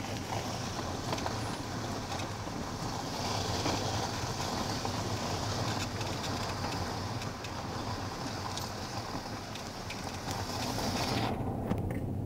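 Steady road and wind noise of a car driving along, heard from inside the car, with a low rumble under a broad hiss; the higher hiss drops away near the end.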